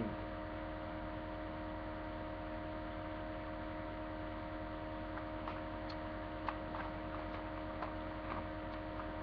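Steady electrical hum on a webcam microphone, with a few faint clicks in the second half from a plastic CD jewel case being handled.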